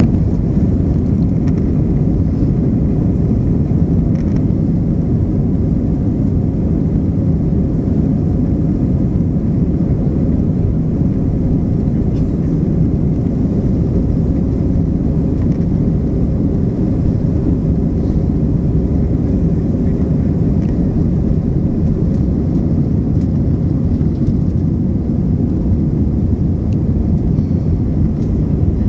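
Jet engines of an Airbus airliner at takeoff thrust during the takeoff roll, heard from inside the cabin: a loud, steady rumble.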